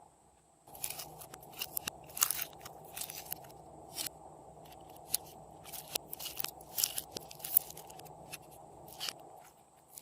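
Slime being kneaded and squished by hand, making irregular crackling clicks and pops that start just under a second in and thin out near the end.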